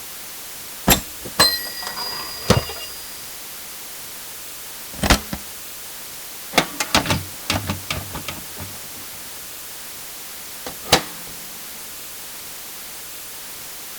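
Office supplies being handled: a series of sharp mechanical clicks and knocks, one with a brief metallic ring about a second and a half in. A quick cluster of clicks follows a little after six seconds, and a single click comes near eleven seconds, over a steady faint hiss.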